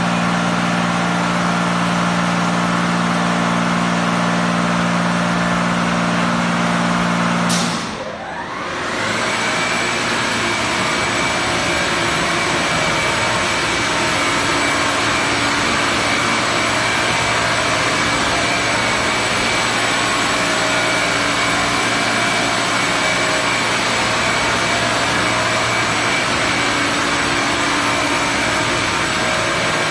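Touchless in-bay car wash machine running. A steady pump hum sounds while water sprays, until about eight seconds in it cuts off with a click. Then the drying blower spins up with a rising whine and blows steadily with a high whine.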